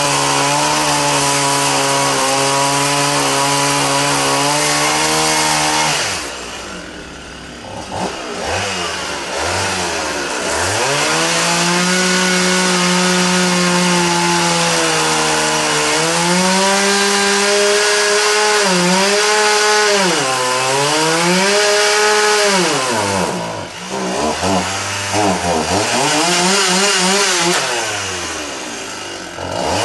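Chainsaw carving into dry dead wood. It runs steadily at high revs for about six seconds, then the throttle drops suddenly. After that it revs up and down repeatedly, with quick short throttle blips near the end.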